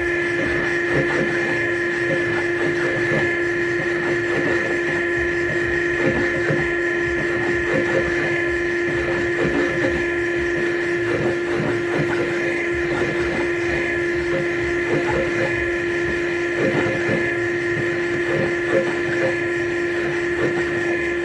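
A machine spindle running with a steady whine while a two-bladed spot cutter faces down a rocker-stud boss on a Holden 308 cylinder head, the cut chattering irregularly as it feeds down to depth.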